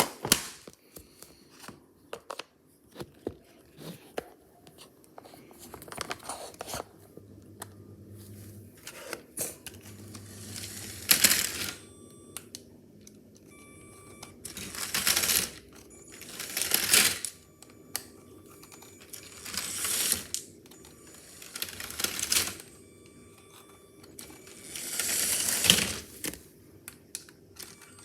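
Repeated short bursts of rustling and clattering, each about a second long, with scattered clicks between them.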